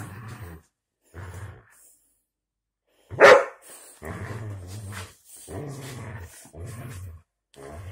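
Dog growling in short bouts while tugging on a rope toy, with one loud bark about three seconds in: play growling during a tug-of-war.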